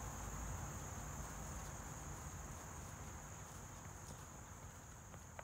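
Steady, high-pitched chirring of crickets or other insects, growing quieter toward the end as the sound fades out.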